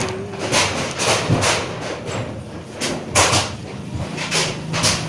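Hands handling a sticker and its packaging: a run of short scraping, rubbing strokes and taps, irregular, about one or two a second.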